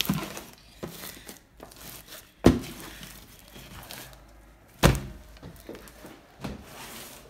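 A large batch of slime being lifted and dropped, landing with three heavy thuds about two and a half seconds apart and a softer one near the end as it goes onto the wooden table and into a plastic storage bin.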